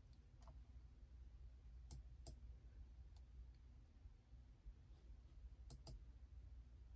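Near silence: room tone with a handful of faint, sharp clicks, two close together about two seconds in and another close pair late on.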